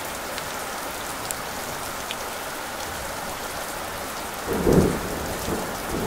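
Rain falling steadily on trees and ground, with a short, loud low rumble of thunder about four and a half seconds in.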